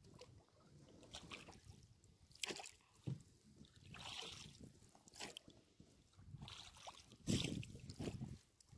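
Faint water lapping and sloshing against the side of a small boat, with scattered rustles and light knocks from a wet gill net being handled. A heavier slap about seven seconds in is the loudest sound.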